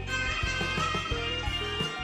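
Traditional-style Chinese instrumental music with strings and regular percussive strikes, playing from a television.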